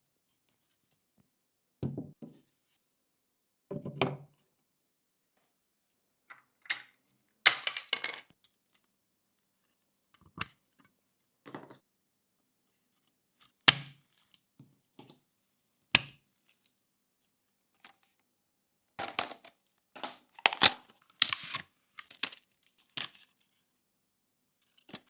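Scattered handling noises of computer parts and packaging during a PC build: rustling and crinkling, soft thuds, and a few sharp clicks of hard plastic or metal parts, with short silences between them.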